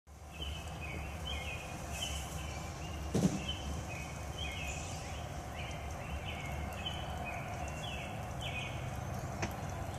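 Outdoor ambience of a wooded yard: a steady low rumble with a quick, repeating series of short high chirps. One sharp thump comes about three seconds in.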